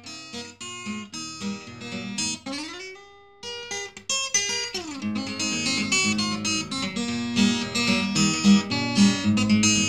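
Background music of plucked guitar, with notes sliding up in pitch about three seconds in and down about a second later; the playing gets fuller and louder about halfway through.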